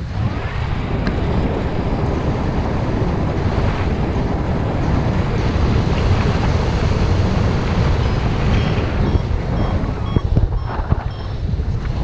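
Strong wind buffeting the action camera's microphone as a paraglider flies, a heavy steady rush strongest in the low end. Over the last few seconds a faint high electronic beep repeats about two or three times a second.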